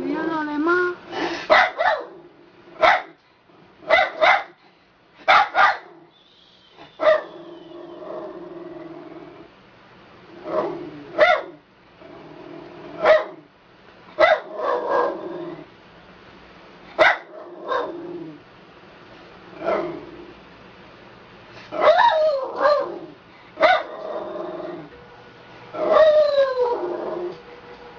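Schnauzer 'singing': short sharp barks and yips every second or two, mixed with drawn-out howling notes, one of them sliding down in pitch near the end.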